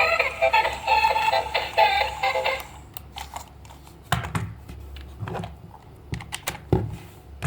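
A bright electronic tune with a synthetic sung melody cuts off about two and a half seconds in. Scattered sharp clicks and knocks follow, a few each second.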